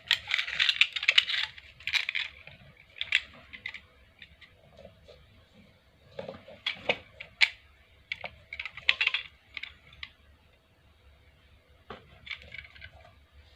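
Utility knife (cutter) scoring and scraping the plastic jacket of a Panduit Cat 6 LAN cable to strip it: spells of scratchy cutting with small sharp clicks, separated by short pauses.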